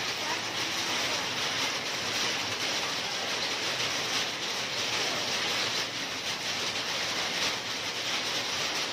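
Heavy rain pouring down steadily: a dense, even hiss with no letup.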